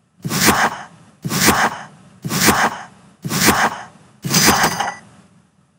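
Quiz countdown timer sound effect: five sharp, noisy hits one second apart, each dying away within about half a second, the fifth with a ringing tone in it.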